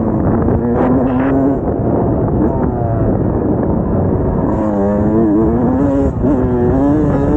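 Dirt bike engine running under load on a motocross track. Its pitch holds fairly level at first, then rises and falls repeatedly in the second half as the throttle is worked.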